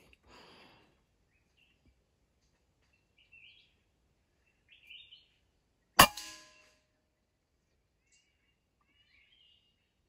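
A single PCP air rifle shot about six seconds in: one sharp crack with a short ringing tail. Faint bird chirps come a few times before and after it.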